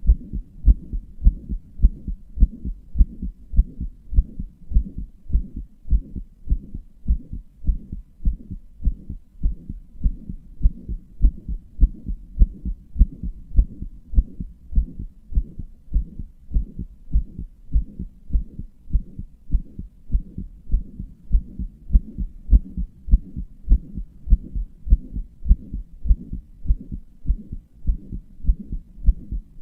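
Human heartbeat beating steadily, with dull, low beats repeating at an even pace. The owner describes it as a weak heart that murmurs and palpitates.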